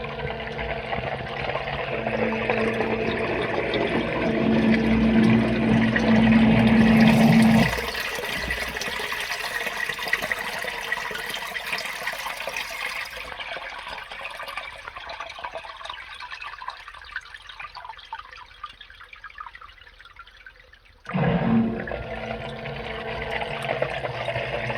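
A 3/4 HP Everbilt sump pump's motor hums as it pumps water out of the pit, with water splashing. About 8 seconds in it shuts off and the water sound trickles away. About 21 seconds in it kicks on again: the pump is cycling on and off quickly under heavy rain inflow.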